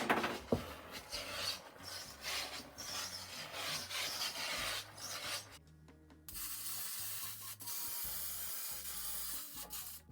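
Carpet being handled and rubbed into place on the car floor, an irregular scratchy rubbing, followed by a steadier hiss for the last few seconds.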